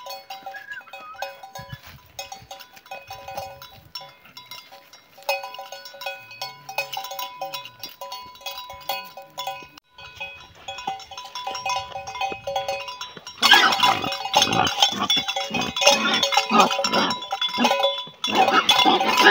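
Bells worn by a flock of sheep ringing on and off as the animals move, then, about two-thirds of the way in, many sheep bleating loudly over the bells.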